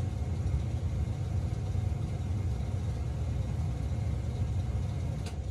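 A steady low mechanical rumble with a faint hiss over it, and a light click near the end.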